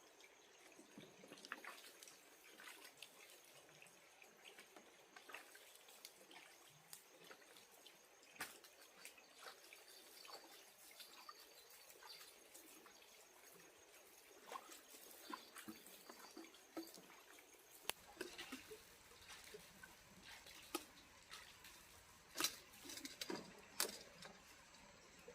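Near silence with faint, scattered small clicks and ticks, more frequent in the last few seconds.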